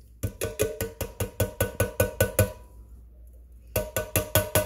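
Metal can of pineapple knocking repeatedly against the rim of a glass blender jar as the chunks are shaken out. A quick run of about ten ringing knocks, a pause of about a second, then a second run of knocks.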